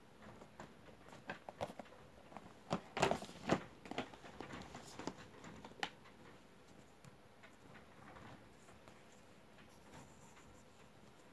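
Cardboard model-airliner boxes with plastic display windows being handled and stacked by hand: a run of light taps, knocks and scrapes, busiest and loudest a few seconds in, with another sharp knock about six seconds in.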